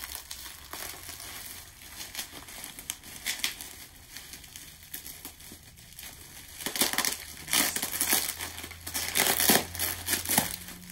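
Packaging wrapping crinkling and rustling as hands tug at a tightly wrapped package to open it, sparse at first and busier and louder from about two-thirds of the way through.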